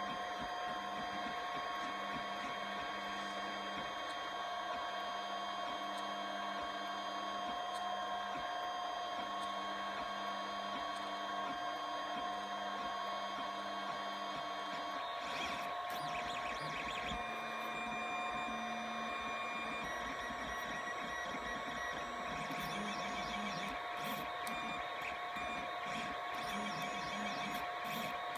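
3D printer running mid-print, with a steady whine from its motors and fans. A lower hum shifts in pitch about halfway through and again a couple of seconds later, as the print moves change.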